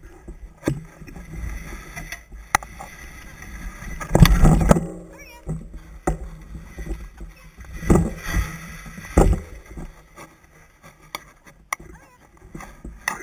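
Wheels of a dryland mushing rig rolling over a dirt forest trail: an uneven rumble with sharp clicks and rattles from bumps, and a louder jolt or rush about four seconds in, with shorter ones near eight and nine seconds.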